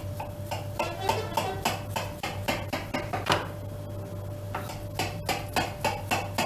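Kitchen knife cutting down through a soaked dessert in a glass baking dish, its blade clicking and tapping against the glass in quick repeated strokes, several a second.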